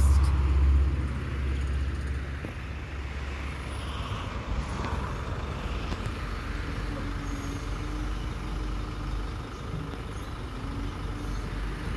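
Garbage truck's diesel engine running as the truck moves off, loudest in the first second or so, then easing to a steady lower rumble.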